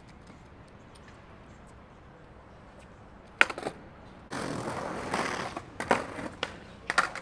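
Skateboard: a sharp clack of the board a little over three seconds in, then the wheels rolling over stone paving from about four seconds in, with several more clacks of the board near the end.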